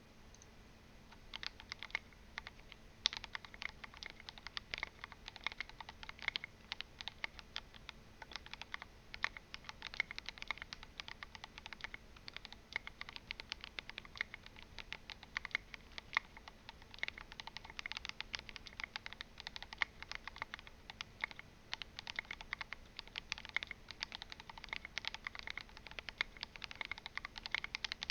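Continuous fast typing on a mechanical keyboard with lubed and filmed Gateron Yellow linear switches, an aluminum plate and case, and SA keycaps: a dense, uneven stream of keystroke clacks that starts about a second in. The stabilized keys do not rattle.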